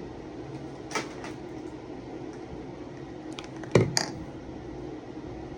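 A few sharp clicks and knocks of hard objects being handled, the loudest knock about four seconds in, over a steady low hum.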